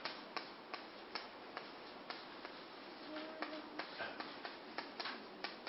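Faint, fairly regular ticking clicks, about two or three a second, over a low room hiss, with a brief faint tone near the middle.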